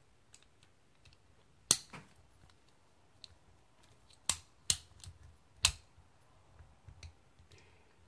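Sharp metallic clicks from an 8 mm socket and extension, turned by hand to thread the main jet holder into the aluminium body of a Honda CR250R carburetor. Four loud clicks fall between about two and six seconds in, with fainter ticks between them.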